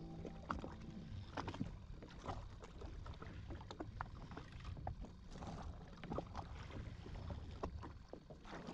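Small waves lapping and splashing against the hull of a drifting jet ski, with many irregular small clicks and knocks over a faint low rumble.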